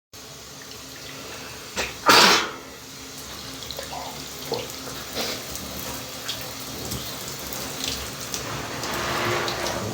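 A man sneezes once, loudly, about two seconds in, over the steady hiss of a running shower.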